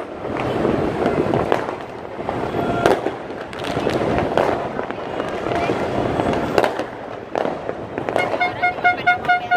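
Fireworks bursting over a city, sharp pops every second or two above a steady din of voices and traffic. Near the end a horn sounds in quick repeated toots, about five a second.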